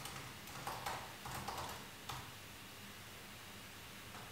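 Faint clicking of typing on a laptop keyboard, a few scattered keystrokes in the first couple of seconds, then only a quiet room.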